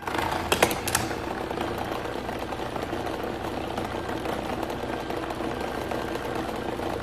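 Simulated earthquake: a steady mechanical rumbling and rattling that starts suddenly, with a few sharp clatters in the first second.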